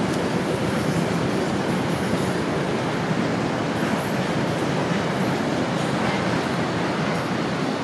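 Audi 1.8T AMB turbo inline-four engine running rough with an uneven, rhythmic rumble: a misfire on cylinder 2, where coolant has been found, which the owner takes for a possibly cracked head.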